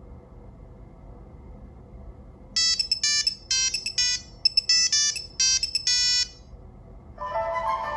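Nokia Lumia 1520 ringtone from Windows Phone 8, played through the phone's speaker. After a pause, a quick run of short, high, bright electronic notes comes in small clusters for about four seconds. Near the end a lower, fuller melody begins.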